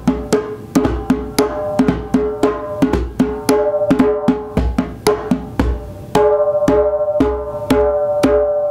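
Djembe drum played by hand in a steady rhythm of about three to four strikes a second, each stroke ringing briefly, with deep bass thumps among the higher tones; it gets somewhat louder about six seconds in.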